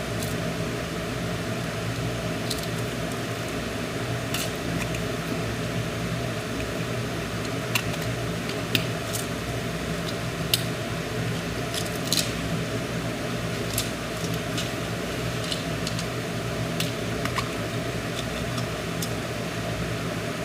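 A steady low mechanical hum, with scattered small sharp clicks and taps through it.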